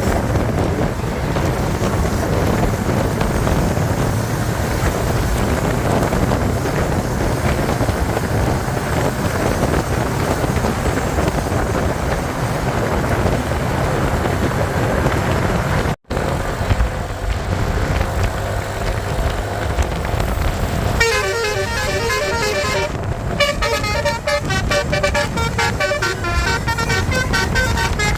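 Steady rumble of traffic and wind on the microphone, cut off for an instant about two-thirds of the way through. In the last seven seconds or so, a bus's 'telolet basuri' multi-tone musical horn plays a quick run of changing notes like a tune.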